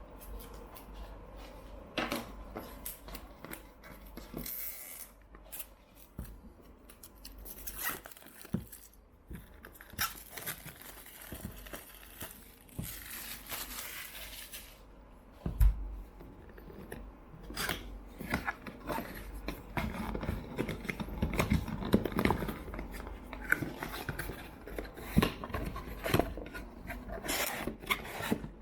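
Packaging being opened and handled: scattered clicks and rustles of cardboard and plastic. A few seconds of steady rough noise come around the middle, and a single thud a little past halfway.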